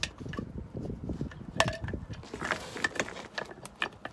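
Metal drum-brake parts, the springs and shoes, clinking and rattling as they are handled and fitted, with one short ringing clink about one and a half seconds in.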